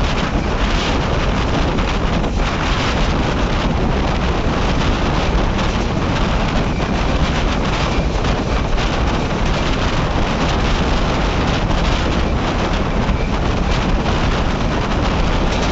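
Steady wind buffeting the microphone held out of a moving express train coach, over the running noise of the train on the rails.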